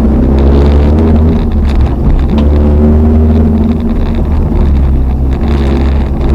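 Toyota RAV4's 3S-GE four-cylinder engine heard from inside the cabin under hard off-road driving, its revs climbing and falling twice over a heavy low rumble, with scattered knocks from the car over rough ground.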